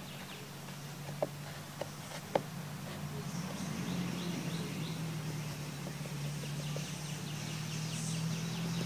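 A few soft, sharp taps in the first few seconds as a hand pats dry rub onto raw beef ribs on a wooden cutting board. Under them run a steady low hum and faint, rapidly repeating chirps.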